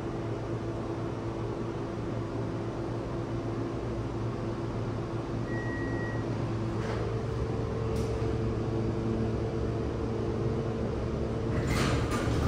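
Otis hydraulic elevator car travelling between floors: a steady hum and low drone, a short single beep about six seconds in, a shift in the hum's pitch with a couple of clicks as the car slows and levels, then the door starting to rattle open near the end.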